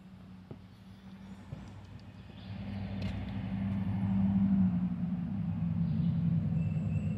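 Low engine drone of a passing motor vehicle, swelling about two and a half seconds in to its loudest around the middle and sinking slightly in pitch as it goes on. Before it, a couple of light footsteps on a wooden footbridge.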